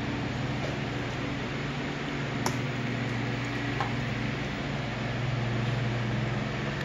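Steady low electrical hum with a fan-like hiss, a little louder for a moment about five seconds in, and a single sharp click about two and a half seconds in.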